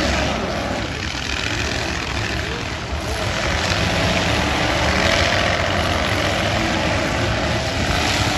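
Several eight-cylinder demolition derby cars' engines running together in a loud, continuous rumble, with no single crash standing out.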